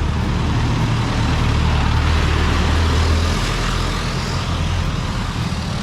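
A jeepney's diesel engine driving past close by: a steady low engine drone that eases off a little over three seconds in, over traffic noise.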